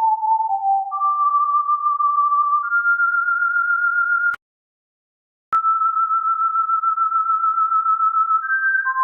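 A pure electronic sine tone, held steadily on one pitch at a time and stepping between pitches. It starts low, steps up three times to higher notes, and cuts off with a click a little over four seconds in. After about a second of silence it comes back with a click on a single held note, then jumps briefly higher and falls back lower near the end.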